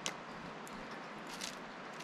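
A Steller's jay pecking at sunflower seeds in a seed dish: sharp clicks right at the start and again about a second and a half in, with a faint one between. A steady hiss of outdoor background noise runs under it.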